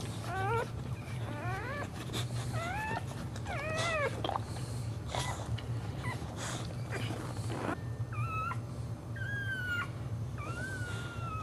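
A boxer in labour whining: a run of short, high whines that slide up in pitch in the first four seconds, then longer drawn-out whines near the end as she strains to deliver a standing birth. Brief noisy bursts fall between the whines, over a steady low hum.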